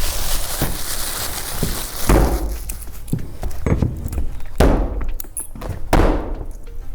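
Rustling and crackling of a sheet of ice and water shield roofing membrane being handled and pulled down onto the roof deck, with three dull thumps, about two, four and a half and six seconds in.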